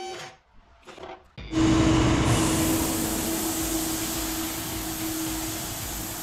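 After a short quiet stretch, a machine starts up suddenly about a second and a half in. It runs steadily as a loud hissing noise with a steady hum through it, and eases off slowly.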